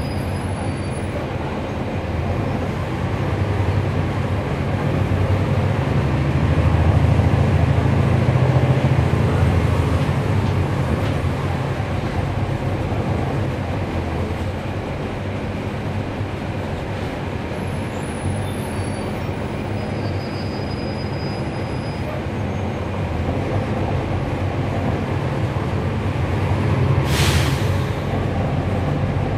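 A city bus's Cummins ISL9 diesel engine and ZF Ecolife automatic transmission heard from on board, a steady drone that gets louder for several seconds and then settles as the bus drives. Near the end there is one short hiss of air.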